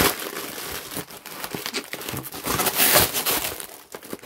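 Plastic bag and foam-sheet packaging crinkling and rustling in irregular strokes as hands unwrap a packed item, loudest about three seconds in.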